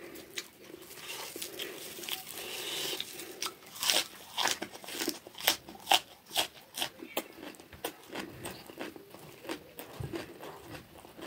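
Raw spring onion stalks rustling as they are folded in the fingers, then bitten and chewed: a run of sharp, wet crunches, about two a second, starting about four seconds in.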